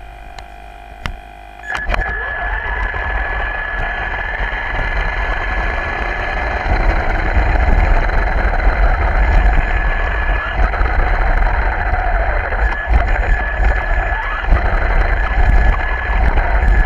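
Radio-controlled car driving on a concrete garage floor, recorded from a camera mounted on the car: after a few clicks, its motor and tyres start about two seconds in and run on as a steady, loud rumble with a thin high whine that rises and falls a little with speed.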